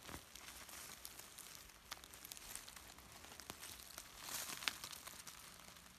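Faint rustling and crackling of dry leaf litter and soil being pushed aside by hand, with scattered small clicks and a louder rustle about four and a half seconds in.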